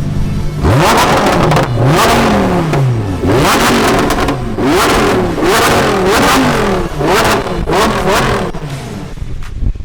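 Lamborghini Huracán Performante's V10 engine accelerating hard: its pitch climbs, drops and climbs again over and over, and the sound dies away near the end.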